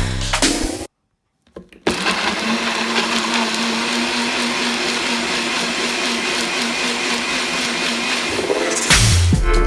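Electric blender running steadily, whizzing fresh herbs, ginger, turmeric, garlic and peppercorns with water to a paste. It starts about two seconds in and stops near the end.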